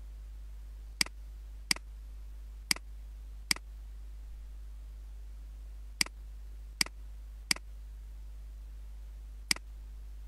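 Computer mouse clicking eight times, single sharp clicks at uneven intervals with a gap of a few seconds in the middle, over a steady low electrical hum.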